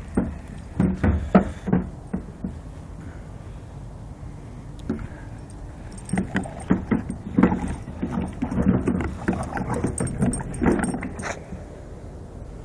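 Plastic wheeled garbage can being moved on grass, rattling and knocking while a bulldog attacks its wheels. There is a short burst about a second in and a longer run of knocks from about six to eleven seconds.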